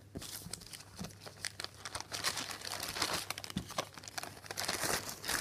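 Clear plastic zip-lock project bag crinkling as it is handled and folded while a cross-stitch project is packed into it, in a run of irregular crackles.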